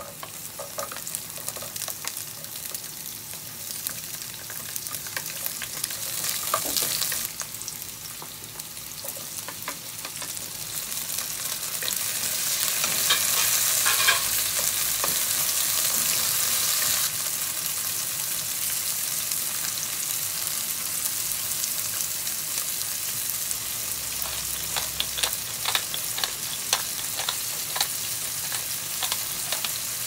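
Oil sizzling in a nonstick wok as sliced radishes, garlic, chilli and cherry tomatoes fry, with a wooden spatula stirring and scraping through them in many small clicks. The sizzle swells louder around the middle and shifts in level suddenly twice.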